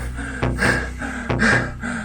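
A person panting hard, quick even gasping breaths about two to three a second, over a music score.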